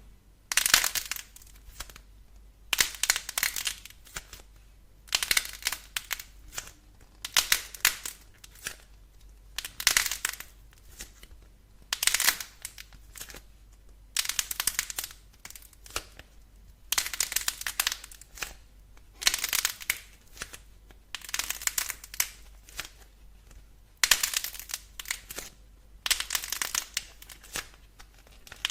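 Crunchy clay or slime being pressed and cracked, crackling in about a dozen crisp bursts, one roughly every two seconds.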